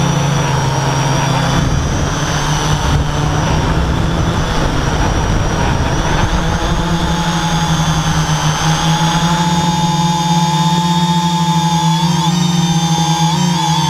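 Electric motors and propellers of a camera drone in flight: a steady whine of several tones over a rushing noise. The rushing thins a few seconds before the end, and the pitch wobbles briefly near the end.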